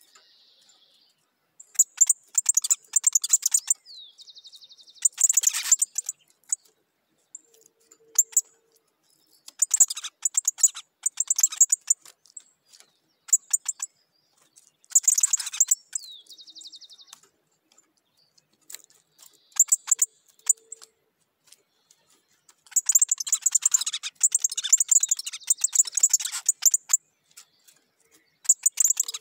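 A songbird known locally as the picahueso singing in short, dry, rapid chattering phrases, repeated every few seconds with brief pauses between, some phrases ending in a quick sliding whistle.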